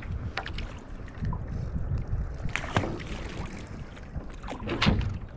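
Water splashing and sloshing against a skin-on-frame kayak and the paddler's body as he leans back and tips it over, with a few sharp splashes, the loudest near the end. Wind rumbles on the camera microphone throughout.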